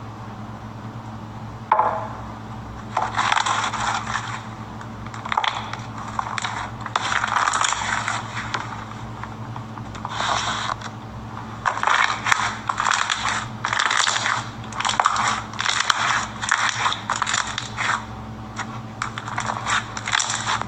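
Slime being squeezed and pressed by hand in repeated crackling, clicking bursts, each a second or so long, after one sharp click near the start, over a steady low hum.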